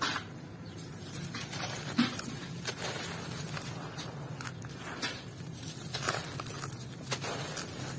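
Hands crushing and crumbling clumps of gritty red dirt, with crumbs falling into muddy water in a metal basin: irregular gritty crackles, the sharpest about two seconds in.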